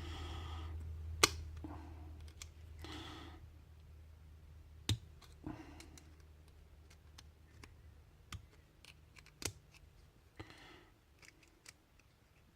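Scattered sharp metal clicks and light taps from handling a pin-tumbler lock and small tools while taking it apart. The loudest click is about a second in, with a few short, soft rushes of noise between the clicks.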